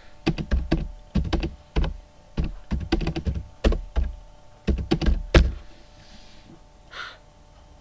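Typing on a computer keyboard: an irregular run of keystrokes entering a web address, ending with the loudest keystroke just over five seconds in, after which the typing stops.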